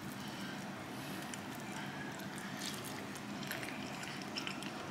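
A steady low hum of room tone, with faint soft squishes and a few light ticks in the second half as fingers tear apart a piece of moist smoked brisket and its crusty bark.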